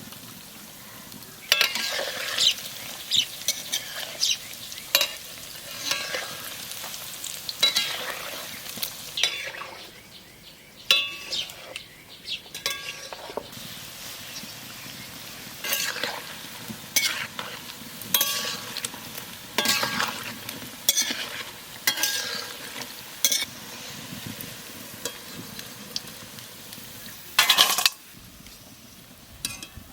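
Palm fritters frying in hot oil with a steady sizzle, while a metal utensil stirs them and scrapes and knocks against the pan.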